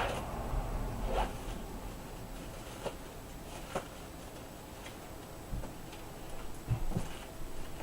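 Handling noise: rustling, then a few light clicks and knocks spread a second or so apart, with two low thumps near the end.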